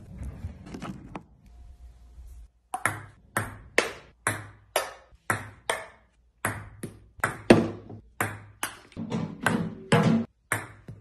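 A ping-pong ball being struck back and forth in a rally: sharp clicks about two a second as it bounces on the table and is hit with improvised paddles, a skateboard and a box. There is a brief break in the rhythm near the middle. Before the rally begins there are a couple of seconds of softer box handling and taps.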